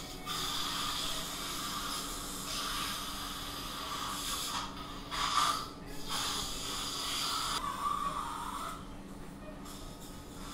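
Operating-room equipment hissing in stretches of a few seconds, with short breaks between, over a steady low hum.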